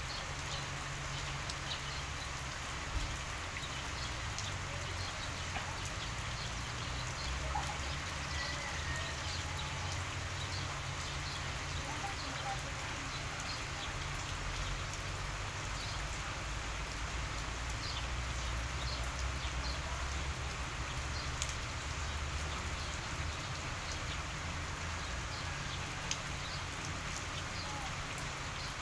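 Steady outdoor background noise: a low rumble and hiss with many scattered faint ticks.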